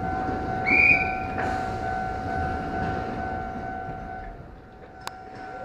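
Electric commuter train at a station, running with a steady two-tone electrical hum that fades toward the end. A short, shrill whistle sounds about a second in, and a single sharp click comes near the end.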